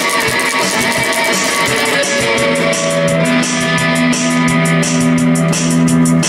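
Electric guitar strumming loud chords that ring on. In the second half it settles into one long held chord.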